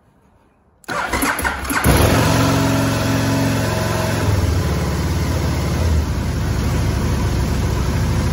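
Aprilia RSV Mille R's 998 cc Rotax 60° V-twin cranking on the starter for about a second, then catching and running on into a steady idle on choke: a cold start.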